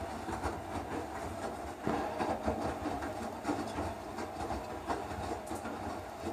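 Electrolux Eco Turbo TRW12 washing machine running its wash cycle: a low rumble broken by irregular knocks and swishes of the load turning in the drum.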